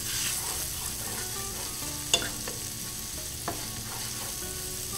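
Chopped onions sizzling in a hot skillet while a wooden spatula stirs and scrapes them, loosening the browned chicken bits stuck to the bottom. A sharp knock comes about two seconds in, and a smaller one a little later.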